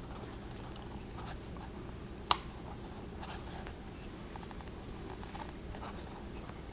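Faint handling sounds of fingers pressing small disc magnets into glued slots in a foamcore strip, with one sharp click about two seconds in.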